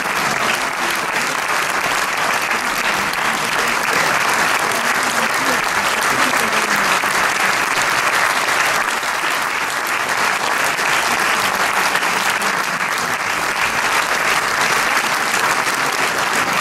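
Theatre audience applauding, a dense, even clapping that holds steady, with a few voices mixed in.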